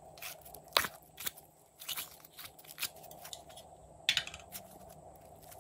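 Blue slime being peeled out of a flexible plastic bow-shaped container, giving a series of sharp sticky pops and crackles. The loudest come just under a second in and again just after four seconds.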